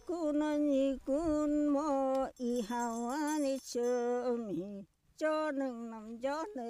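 A single voice singing a slow melody in long held notes that glide between pitches, phrased with short breaks, over a faint tinkle of bells.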